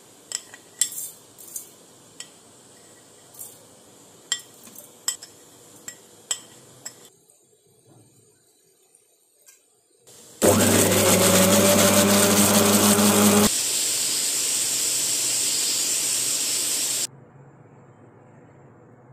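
Kitchen utensils clinking a dozen or so times. After a brief lull, a kitchen blender runs loudly for about three seconds, then changes to a quieter steady noise that lasts about three more seconds and stops suddenly.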